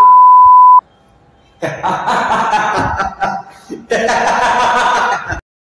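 A loud, steady single-pitch censor bleep lasting about a second, cutting off sharply. Then a young man laughs in two bursts.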